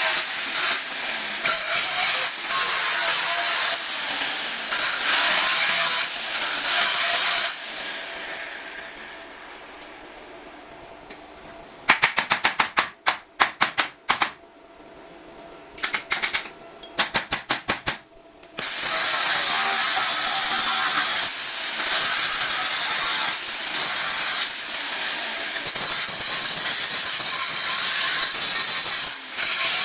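Metalworking on a steel window grille: long stretches of steady, hissing machine noise, broken twice in the middle by runs of rapid short clicks.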